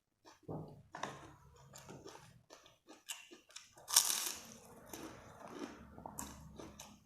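A person eating: irregular chewing and biting sounds, with one louder bite about four seconds in.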